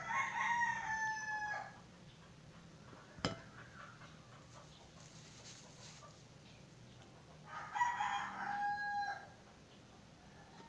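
A rooster crowing twice, each crow under two seconds long, the second coming about seven and a half seconds after the first. A single sharp click falls between them.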